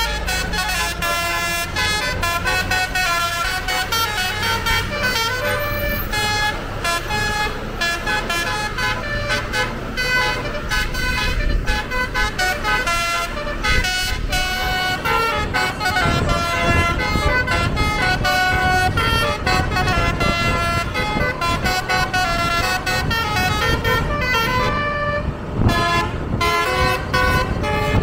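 Bus's basuri musical horn playing a fast tune of quickly changing notes, with the engine's low rumble beneath.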